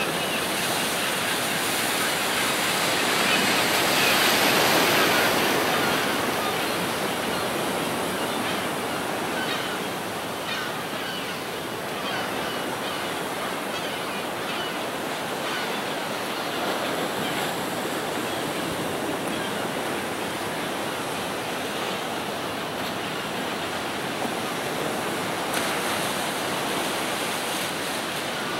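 Ocean surf breaking on rocks: a steady rush of water, with a louder wave surge about four seconds in.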